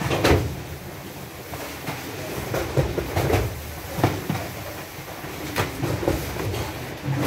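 Cartons of cup drinking water being handled and set down during unloading from a truck: irregular knocks and thumps over a steady low rumble.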